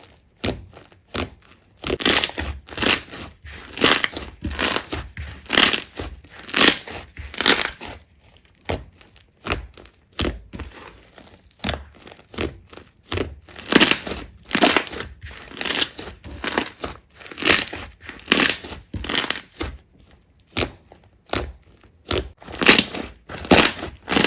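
Slime being squeezed and pressed by hand, in repeated short squishes about one or two a second, with a lull roughly a third of the way through.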